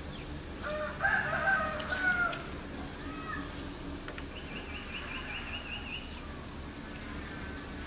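A rooster crowing once, about a second in, in one call of just under two seconds that rises and then falls away.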